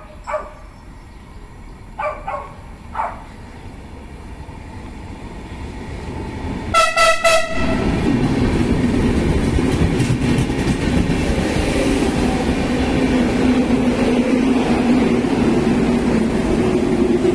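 A dog barks a few times in the first three seconds. About seven seconds in, a train horn gives a loud, pulsed blast. Then a Renfe electric multiple unit runs along the platform with a loud steady rumble and a low motor hum.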